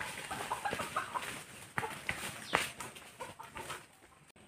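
A chicken clucking in short calls, mixed with sharp snaps and crackles of twigs and dry leaves underfoot in the undergrowth.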